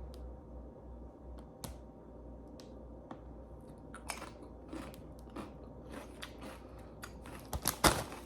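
Potato chips being bitten and chewed: scattered crisp crunches that come faster and louder near the end.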